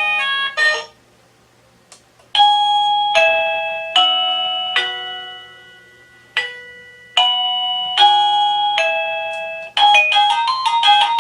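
Wireless doorbell chime unit playing its built-in electronic tunes: one tune ends just under a second in, and after a brief pause and a faint click a slow melody of ringing chime notes plays, each note fading before the next. A faster, busier tune starts near the end.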